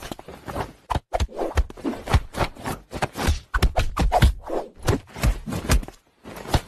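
Irregular thumps and rubbing, several a second, as a hand pats and pushes at a cat and rubs its fur.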